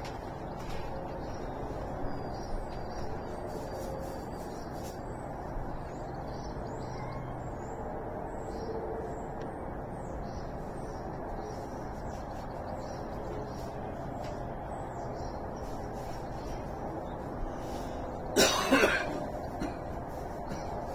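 Faint birds chirping over a steady low background rumble, with a person coughing loudly two or three times near the end.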